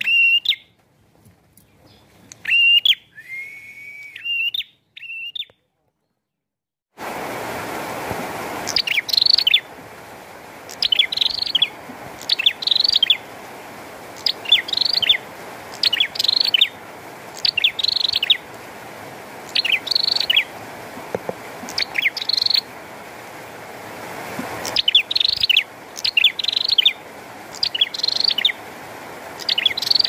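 Caged prenjak (prinia) singing. A few scattered chirps, a brief pause, then a sharp call repeated about once a second over a steady rain hiss that starts abruptly about a quarter of the way in.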